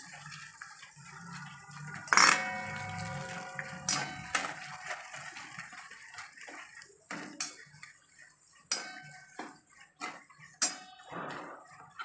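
Perforated steel spoon stirring and scraping in a steel kadhai of peanuts and dal in oil, with scattered clinks and knocks. About two seconds in, a sharp clang sets the pan ringing for a second or so.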